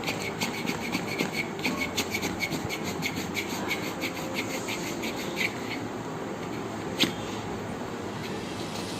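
Hands briskly rubbing skin in a circulation massage, in quick regular strokes about four or five a second that stop about five and a half seconds in. A single sharp click follows about seven seconds in.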